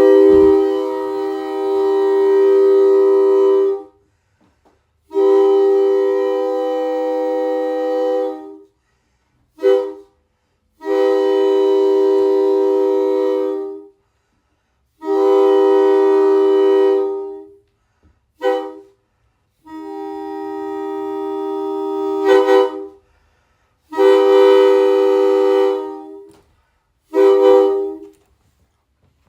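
Homemade PVC air train horns, built to imitate a Nathan K3LA three-chime horn, blowing a steady chord. They sound in a string of long blasts of about three seconds each, broken by a few short toots, and one blast swells louder toward its end.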